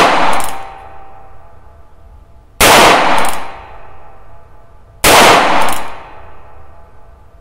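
Shots from a .22 LR single-action revolver, two about two and a half seconds apart and a third right at the end, each ringing briefly in a small indoor range. The first second holds the dying echo of the shot before.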